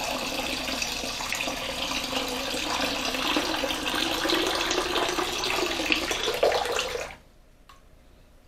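Water pouring in a steady stream from a plastic gallon jug into a large glass measuring cup, filling it; the pour stops abruptly about seven seconds in, followed by a faint drip.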